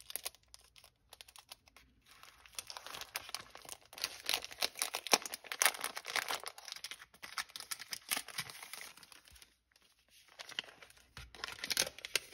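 A small package being opened by hand: its wrapping crinkles and tears in a long stretch of rustling, then a shorter bout near the end.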